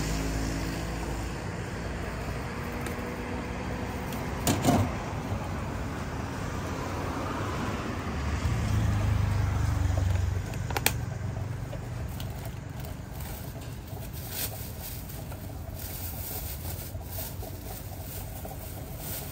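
Steady low rumble of a running motor vehicle, swelling for a couple of seconds near the middle, with a few sharp clicks and the crinkle of plastic bags being handled in the second half.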